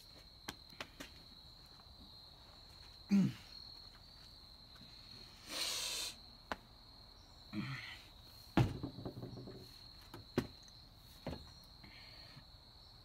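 A man making a few short strained throat noises: falling grunts, a breathy huff and a sharper cough-like burst, as he tries to force down a live fish stuck in his throat. A steady high-pitched insect drone runs underneath.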